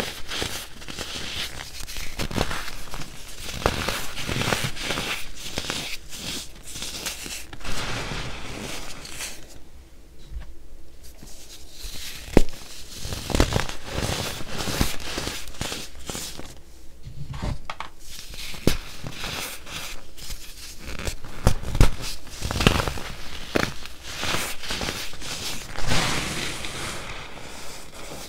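Fingers crushing and crumbling chunks of compressed baking soda: a dense crunching and crackling with a few sharper snaps, easing off briefly twice.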